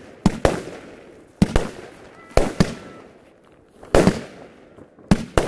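A box of consumer fireworks (a multi-shot cake) firing: sharp bangs in quick pairs, five pairs a little over a second apart, each pair trailing off in a fading rumble.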